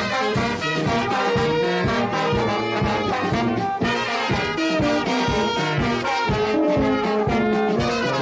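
Brass band playing, several brass lines sounding together over a steady percussion beat.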